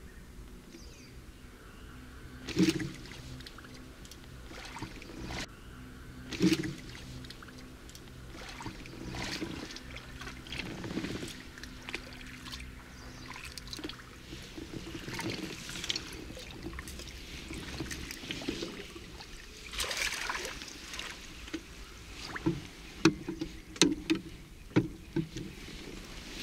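Water splashing and swirling at the surface as a hooked herabuna (Japanese crucian carp) is played close to the bank, with scattered sharp knocks, the loudest about three and six seconds in, and a quick run of splashes and clicks near the end.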